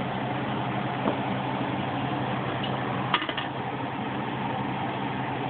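Metal cookware clinking about three seconds in, with a fainter click about a second in, as the aluminium pressure-cooker lid is handled over the pot. A steady hum runs underneath.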